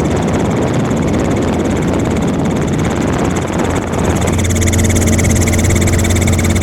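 Helicopter running steadily, a loud dense whirring. A little over four seconds in, the sound changes to a steadier engine hum with a clear low pitch.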